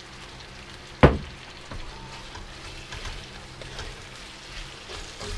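Vegetables added to a stainless wok of sauced beef and stirred with a wooden spatula: light sizzling with scattered scrapes and clicks, the wok not as hot as the cook wanted. One sharp knock about a second in is the loudest sound.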